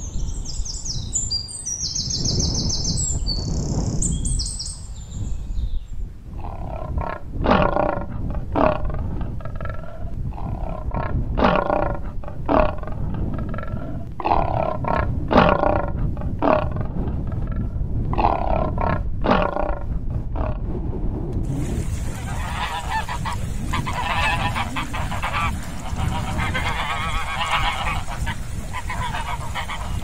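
A sequence of animal calls: short high chirps at the start, then about a dozen separate harsh calls roughly a second apart, and from about twenty-one seconds in the steady honking of a group of swans.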